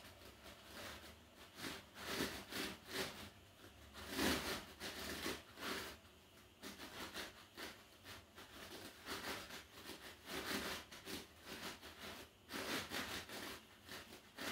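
Faint, irregular rustling and shuffling from a person balancing barefoot on a rubber balance disc, with one louder rustle about four seconds in.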